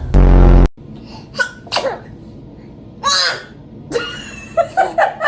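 A newborn baby sneezing and snuffling: small high sneezes, with a quick run of short ones near the end. A loud, deep half-second burst comes just after the start.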